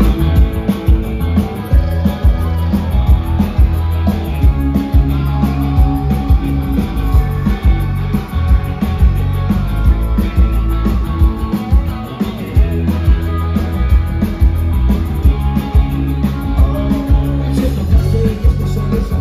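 Live rock band playing: electric guitar, bass and drum kit, with a steady drum beat over heavy bass.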